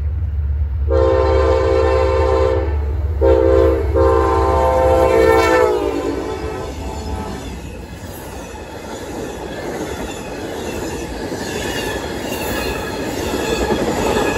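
Amtrak passenger train passing at speed: the locomotive sounds its horn in two long blasts starting about a second in, the second dropping in pitch as it goes by. Then the cars roll past with steady wheel-on-rail clatter and a faint wheel squeal near the end.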